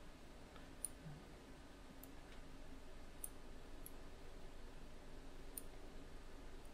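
A few faint, sharp computer mouse clicks, scattered and irregular, over faint room tone.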